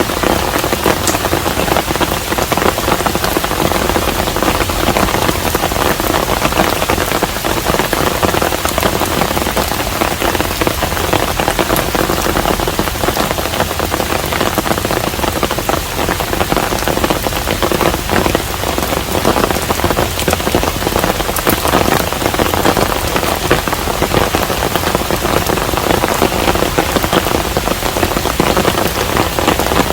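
Steady rain falling on a traditional Korean hanok house: a dense, even patter with fine individual drop ticks, unchanging throughout.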